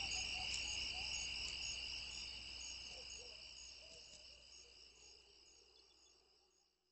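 Crickets chirping in a steady, pulsing high trill, fading out gradually to silence near the end.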